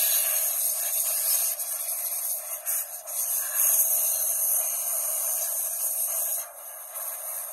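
Forced-air blower (car dryer) blowing water off a wet chrome golf cart wheel through a nozzle: a steady rushing hiss that drops somewhat quieter near the end.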